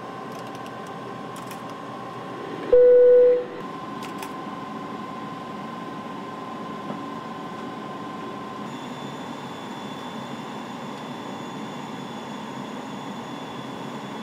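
Steady hum and air noise of an airliner cockpit on approach. About three seconds in, a single loud beep of one clear pitch sounds for under a second: a cockpit aural alert tone.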